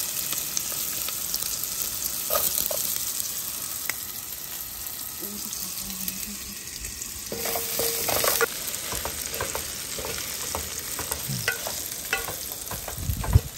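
Food frying and sizzling in a pan, with scattered clicks and scrapes of a utensil stirring it, and a single thump just before the end.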